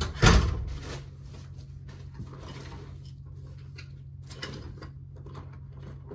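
A loud thump just after the start, then scattered small clicks and knocks of things being handled and set down, over a steady low hum.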